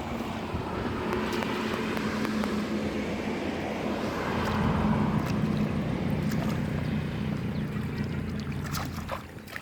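A small engine running steadily, growing louder about halfway through and then easing off near the end, with a few light knocks near the end.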